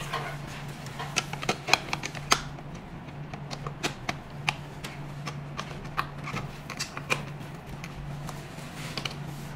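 Scattered light clicks and knocks as the parts of a roller slimming machine's hand piece are handled and pressed together to seat the end cap in its slots. The clicks come quickly in the first couple of seconds, then sparsely, over a steady low hum.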